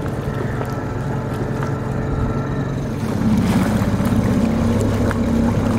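Small 3.5-horsepower outboard motor pushing a dinghy, running steadily, then throttled up about three seconds in, running louder and a little higher.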